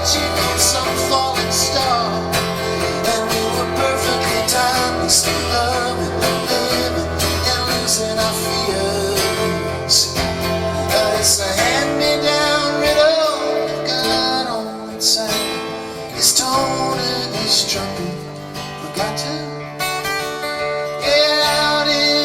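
A live band playing, guitar to the fore, with gliding lead lines. The deep bass drops out about halfway through.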